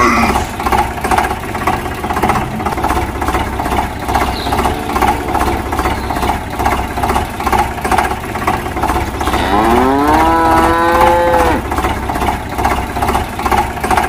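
An engine chugs at a steady, even rhythm, like a tractor running. About ten seconds in, a cow gives one long moo that rises and then holds.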